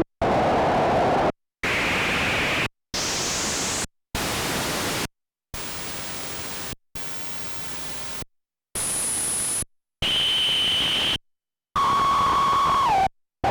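Korg Monologue analog synthesizer playing a run of short noise samples, about one a second with brief gaps between them. Each is filtered noise whose resonant peak sits higher than the last. In the later hits the resonance rings as a clear whistling tone, and the last one drops in pitch near its end.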